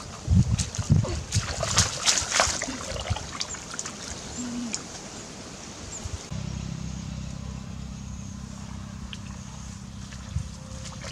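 Shallow muddy water splashing and sloshing as hands feel through it for fish, in quick irregular strokes that thin out after about four seconds. About six seconds in, a steady low rumble takes over.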